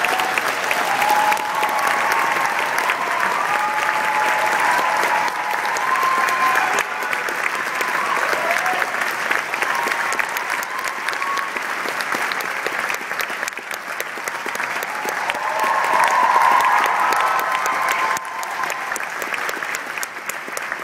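Concert-hall audience applauding, a dense steady clapping, with whoops and cheering voices over it that swell about 16 seconds in.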